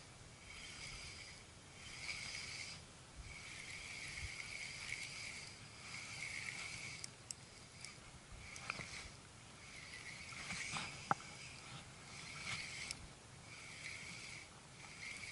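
Shimano Biomaster 1000 spinning reel being cranked in short spells with brief pauses, its gears whirring as the lure is retrieved. There are two sharp clicks in the second half.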